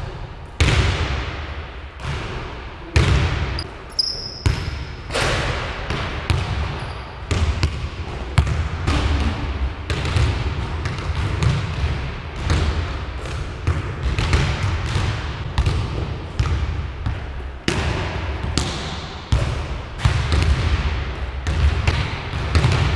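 Basketballs bouncing on a hardwood gym floor in irregular, overlapping thuds, echoing in the large hall.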